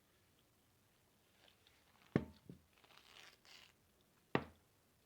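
Close-up eating sounds of fried fish being bitten and torn: a few sharp crunches, the loudest about two seconds in and another after four seconds, with a soft rustle between them.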